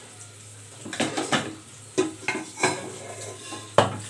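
A ladle scraping and knocking against a cooking pot as cooked rice is scooped out: a run of clanks and scrapes, the sharpest near the end.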